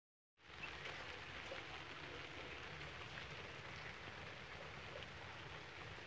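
Water trickling and dripping steadily onto a stone Shiva lingam: a faint, continuous patter with small scattered drops.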